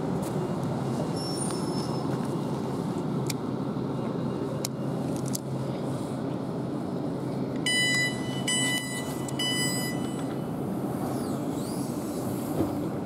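Siemens Desiro Class 450 electric multiple unit standing at the platform with a steady hum. About eight seconds in, its door warning beeper sounds three short times in quick succession as a passenger opens a door with the push button.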